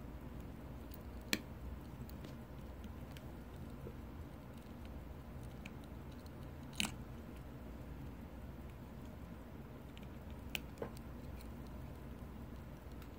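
A few isolated small sharp clicks and taps from handling a Waltham pocket watch and its small tools, the loudest about seven seconds in and two in quick succession near eleven seconds, over a low steady background hum.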